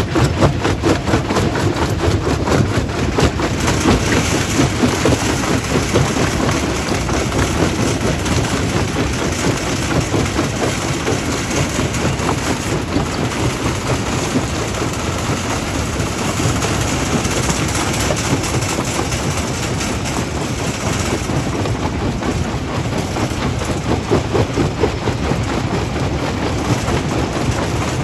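Stone crushing plant at work: heavy diesel machinery running steadily under a continuous fast clatter of rock.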